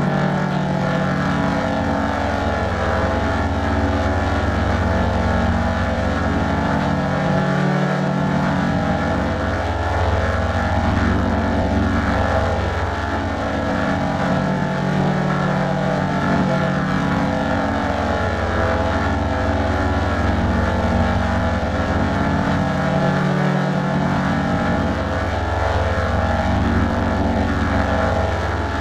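Sustained keyboard chords moving through a progression in G major, the bass notes changing every few seconds.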